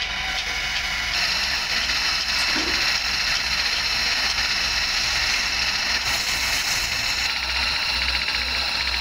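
Electric-motor-driven polishing spindle running with a steady whine while a small metal bearing part is held against its spinning abrasive wheel; a brighter grinding hiss comes in for about a second around six seconds in.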